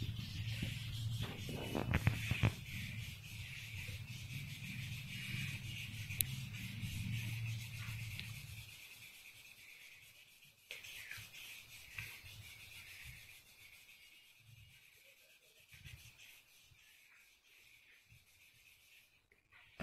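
Soft rubbing on drawing paper as a leaf is shaded, under a steady hiss. A low hum runs through the first half and stops about halfway, and there are a few knocks about two seconds in.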